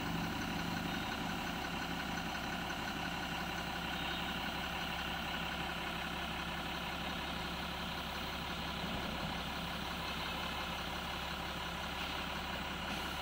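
Diesel engine of a heavily loaded 12-wheel lorry running steadily at an even pitch.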